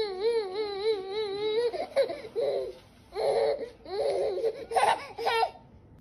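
A baby laughing: one long wavering peal in the first couple of seconds, then several shorter bursts of laughter.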